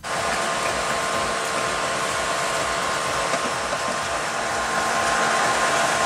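Petrol station fuel dispenser running while it pumps fuel: a steady, loud whirring hum, with a low note joining about four seconds in.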